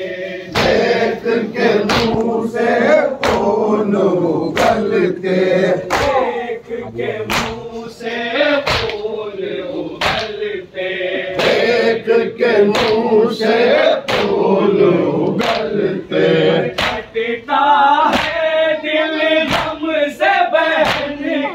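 A crowd of male mourners chanting a noha (Urdu lament) in unison, with chest-beating (matam) slaps keeping a steady beat under the chant.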